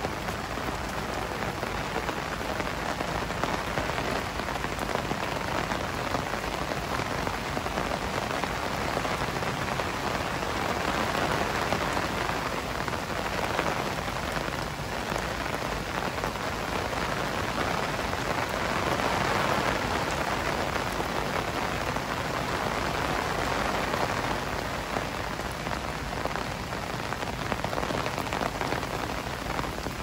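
Heavy rain falling steadily, a dense even hiss that swells a little about a third of the way in and again about two-thirds through.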